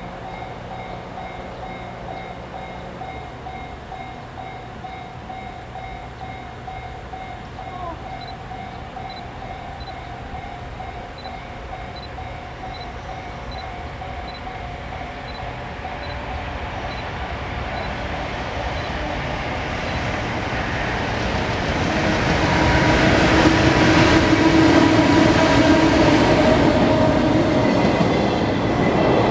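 A level crossing warning bell dings steadily, about twice a second. An EF510 electric locomotive hauling one container flat wagon then approaches and passes, growing louder to a peak of wheel-on-rail and motor noise over the last several seconds.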